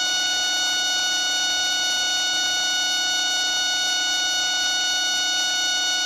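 A flat, unchanging electronic buzz with several overtones: the stuck, looping audio of a frozen computer.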